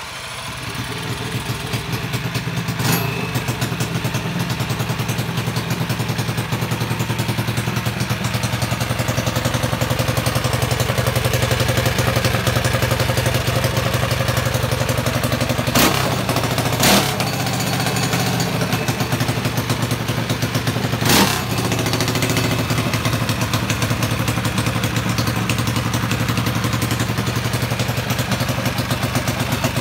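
Small mini-bike engine on its first start-up: it is spun over by a handheld starter box and catches, then keeps running steadily and loudly. A few brief sharp cracks stand out, one about three seconds in and a cluster around the middle.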